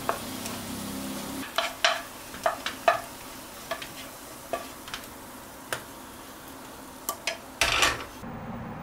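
A cooking utensil scrapes and taps against a nonstick frying pan as sticky glazed lotus root and sweet potato slices are tossed, then scraped out of the pan onto a metal tray, with a light sizzle under it. There are many short clicks, and a longer, louder scrape a little before the end.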